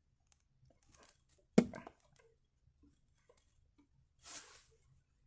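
Faint handling noises of fingers twisting stripped copper wire ends together, with a sharp click about one and a half seconds in and a short rustling hiss near the end.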